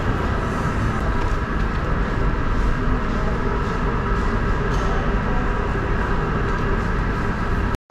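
Steady background rumble and hum of a large indoor hall, with no distinct events; the sound cuts out for a moment near the end.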